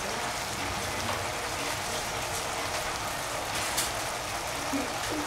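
Steady hiss of chopped zucchini and cranberries cooking in a saucepan over a lit gas burner, with one faint click about two-thirds of the way through.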